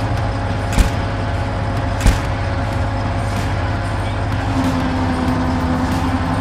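Steady low engine rumble, like a heavy vehicle idling, with two sharp knocks in the first half and a steady hum joining about two-thirds of the way through.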